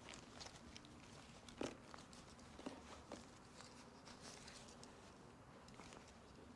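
Faint rustling and small clicks of hands rummaging through a canvas shoulder bag, with one sharper click about a second and a half in.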